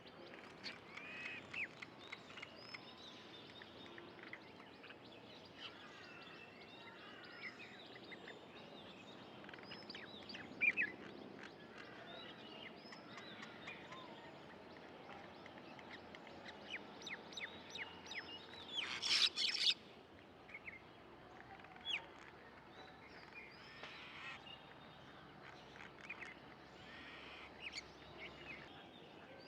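Small birds chirping and calling in quick short notes throughout, with one louder, harsh call about two-thirds of the way through.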